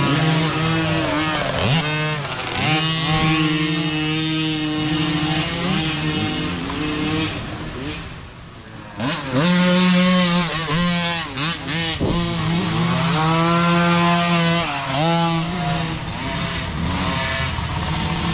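Several small youth micro dirt bikes, their engines revving up and down as the riders work along a dirt trail, with more than one bike heard at once. The sound drops briefly about eight seconds in, then a bike goes by close and loud.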